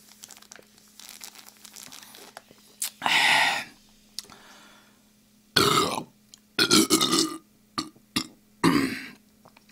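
A man burping loudly several times, from about three seconds in, after gulping carbonated Coca-Cola from the bottle. The burps are long and drawn-out.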